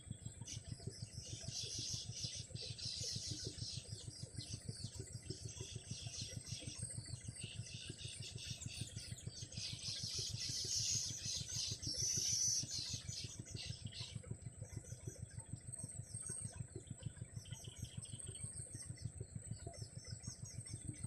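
Baby bulbuls chirping in the nest: dense, rapid high chirps from about a second in until about fourteen seconds, loudest just before they stop. A steady high tone and a fast low pulsing run underneath.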